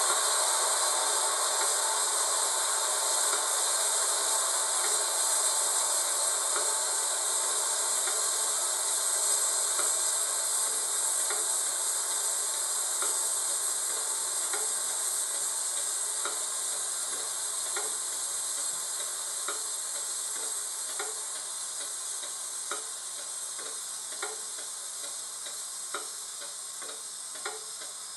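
Class 30 DCC sound file playing a steady hiss that slowly fades, with faint clicks roughly every second and a half that stand out more as the hiss dies away.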